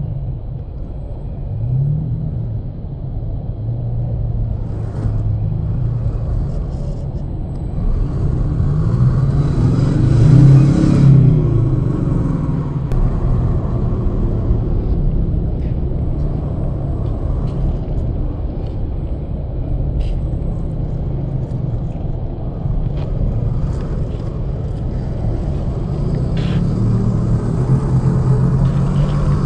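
Electric drivetrain of a 1/10-scale Axial SCX10 II rock crawler, a brushed 540-size 27-turn motor through its gears, whining as the truck crawls over dirt and gravel, its pitch rising and falling with the throttle and peaking about ten seconds in. Scattered clicks of loose stones under the tyres.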